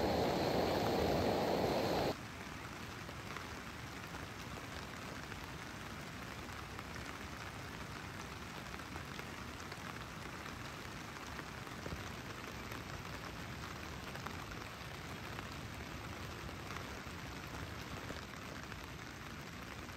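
Camping gas stove burner running under a kettle for about two seconds, then stopping abruptly. After that, steady rain falls on the nylon tent and tarp.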